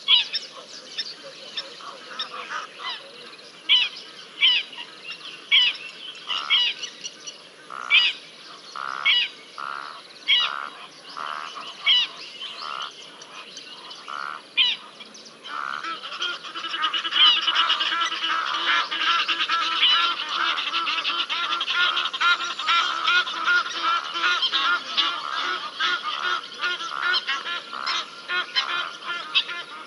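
Animal calls: short high calls repeated every second or so, giving way about halfway through to a dense, rapid chattering chorus with a faint steady low hum beneath.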